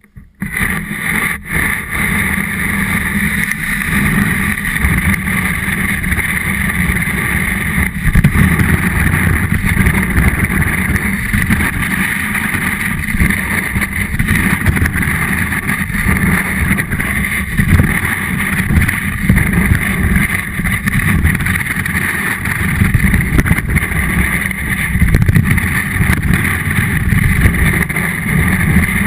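Snowboard sliding down a packed-snow slope, the board scraping over the snow as picked up by a camera mounted on the board, with wind rumbling on the microphone. A steady, loud rush that starts suddenly as the run begins.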